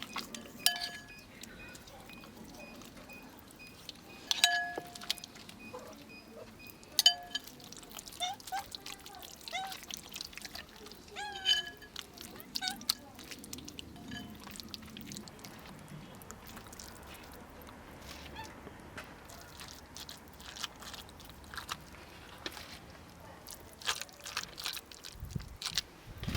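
Kitchenware clinking: several separate strikes, each ringing briefly at the same pitch, with quieter handling sounds in between.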